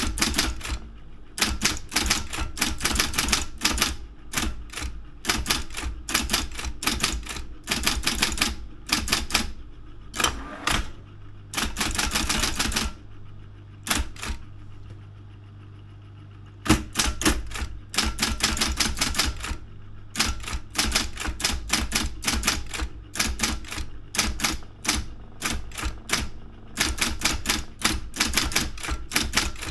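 Daro 202 electric typewriter being typed on: rapid runs of sharp key strikes broken by short pauses. A steady low motor hum runs underneath and is heard on its own during a pause of about two seconds near the middle.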